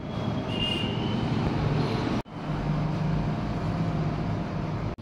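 Steady low background rumble like road traffic, with a low hum running through it. It breaks off sharply for an instant about two seconds in, then carries on.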